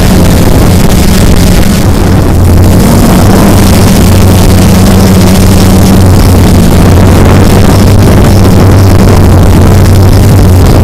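Multirotor drone's electric motors and propellers buzzing steadily at close range, a low hum with a strong overtone, under wind rushing over the microphone.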